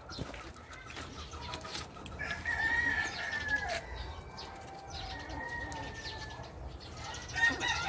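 Chickens calling in the background, with two long drawn-out calls, each about a second and a half, a couple of seconds apart, and a louder burst of calls near the end.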